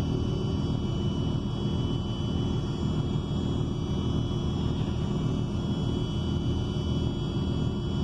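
Steady low rumble inside the cabin of an ENC Axess bus under way, from its Cummins Westport L9N natural-gas engine and Voith automatic transmission, with road noise and no air-conditioning fan running. A faint steady high whine sits over the rumble.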